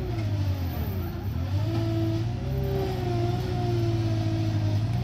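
Diesel engines of a skid-steer loader and a mini excavator running under load as the loader shoves a heavy tree root ball across the dirt. The engine note dips about a second in, then climbs and holds.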